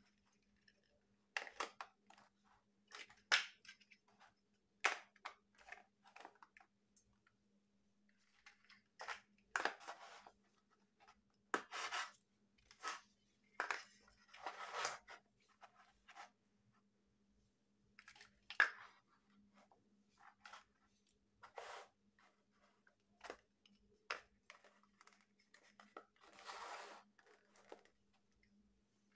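Large hollow plastic building blocks being handled, snapped together and set down on a table: irregular clicks, knocks and short scraping rattles, sometimes singly and sometimes in quick clusters.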